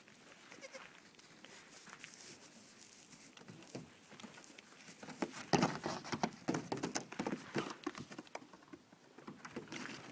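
A month-old baby goat bleating and its hooves clattering as it jumps about, the knocks coming thickest about halfway through.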